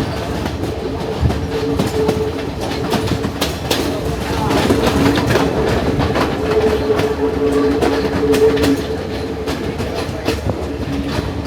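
Passenger train running on the line, heard from aboard a carriage: a steady rumble with the clicking of wheels over rail joints, and a droning tone that comes and goes.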